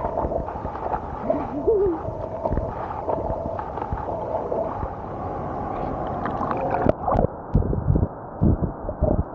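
Water splashing and gurgling around a camera in a waterproof cover as a person swims. About seven seconds in the sound turns suddenly muffled, as if the camera dips underwater, and gives way to irregular dull thumps of the swimming strokes.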